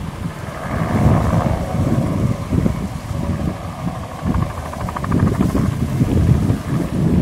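Bell 206B-3 JetRanger III helicopter flying past low and banking into a turn: its turbine and rotor blades run steadily. Gusty wind buffets the microphone throughout.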